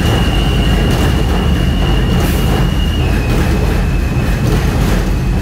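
NYC subway train running along the station platform: a loud low rumble with a steady high whine that steps down slightly in pitch about three seconds in.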